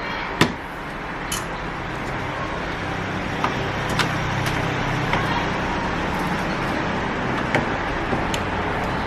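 Steady background noise with a low hum, broken by scattered light clicks and taps of the plastic motherboard power connector and cable being handled and latched into the socket.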